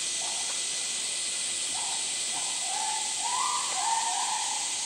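Steady high-pitched hiss of outdoor background, with a few short calls or voices, the loudest about three to four seconds in.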